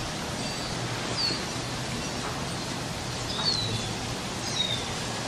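Wind blowing outdoors, with small birds chirping: short falling chirps about a second in and twice more in the second half.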